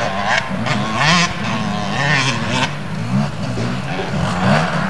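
Motocross bike engines revving, their pitch rising and falling again and again as the throttle opens and closes.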